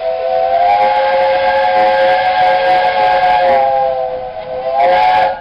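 Peppercorn A1 steam locomotive's whistle sounding a long blast of several tones together, sliding up slightly at the start. A short second blast follows near the end.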